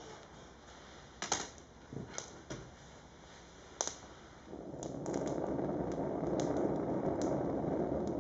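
Kindling and firewood in an open hearth fire crackling, with scattered sharp pops. About halfway in, a steady rushing noise rises and holds for about four seconds, louder than the pops.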